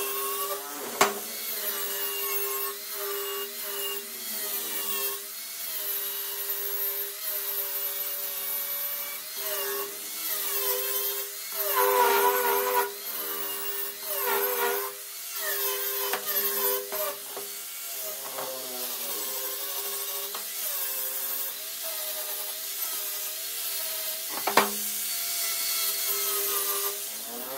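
Angle grinder with a flap disc running continuously, sanding down welds on stainless steel: a steady motor whine under a rasping grind whose higher tones waver as the disc works the metal. It is loudest about twelve seconds in, with a sharp tick about a second in and another near the end.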